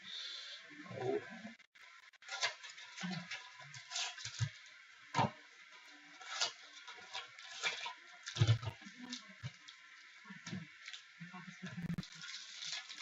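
Trading cards and their packaging being handled on a table: scattered light clicks, rustles and slides, with a few soft thumps, the strongest about eight and a half seconds in.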